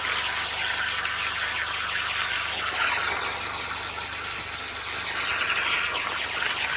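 CNC plasma torch cutting steel plate: a steady hiss of the plasma arc and its air jet, easing slightly about two-thirds of the way through.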